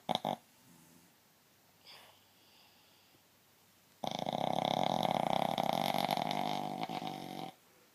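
Snoring from a sleeper: the end of one snore right at the start, a quiet pause, then one long loud snore starting about four seconds in and lasting about three and a half seconds.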